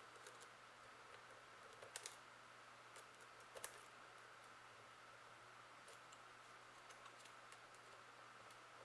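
Faint, sparse clicks of a lock pick working the finger pins of a Tubar lock: a quick pair about two seconds in and a sharper single click a little after three and a half seconds, over a faint steady hum.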